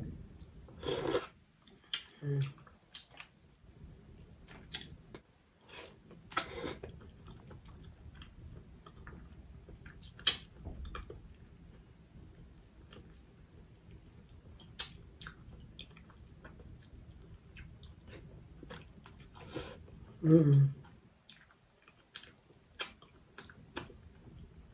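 Close-miked eating sounds: wet chewing, lip smacks and mouth clicks on crawfish and boiled egg dipped in garlic butter sauce. The sounds come in scattered short bursts, louder about a second in and again around twenty seconds in.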